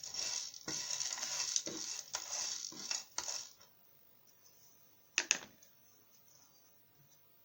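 Whole dry-roasted spices (cloves, cardamom, black pepper, cinnamon sticks) rattling and scraping in a pan as they are stirred or moved about for about three and a half seconds, with sharp clicks. This stops, and a single sharp clack follows about five seconds in.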